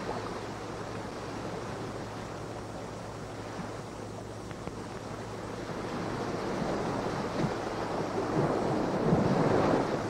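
Sea waves washing on a shore with wind, swelling louder over the last few seconds, over a steady low hum.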